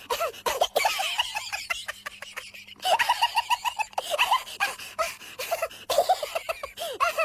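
Laughing sound effects: a person laughs in quick repeated bursts, with a rapid clicking stretch of laughter, then a different laugh begins about three seconds in.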